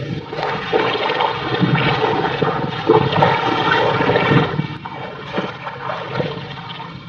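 Shallow muddy water splashing and sloshing in irregular strokes as a person wades through it and works at the bank by hand, quieter after about four and a half seconds.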